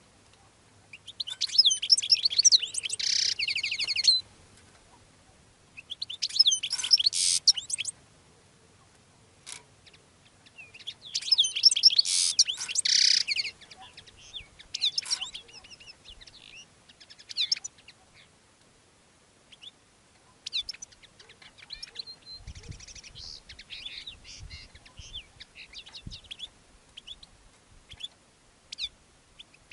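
Male European goldfinch singing in courtship: phrases of rapid twittering trills and tinkling notes, each two to three seconds long, the three loudest in the first half, followed by softer, scattered twitters.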